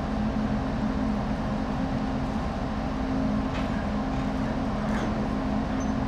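Steady low hum of the Japan Coast Guard survey ship Koyo (HL12)'s machinery running at the quay as the ship readies to leave port.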